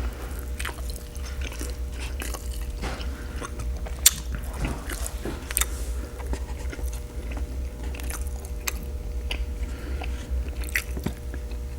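Close-miked chewing of birria tacos: wet mouth smacks and clicks with some crunching, over a steady low hum. There is one sharper click about four seconds in.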